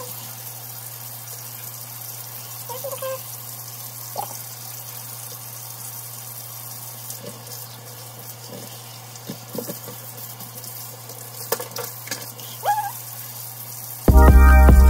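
Kitchen sink tap running steadily while wet hair is shampooed by hand, with a few faint soft handling sounds. Loud music cuts in near the end.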